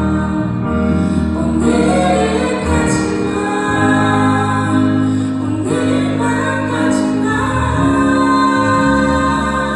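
A live band playing a slow pop ballad, with a woman singing the melody over keyboard and electric guitar.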